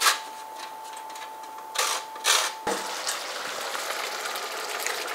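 A lime rubbed on a metal box grater: a light scrape, then two harsher rasping strokes about two seconds in, over a faint steady whine. After an abrupt cut, a steady soft hiss with faint ticking.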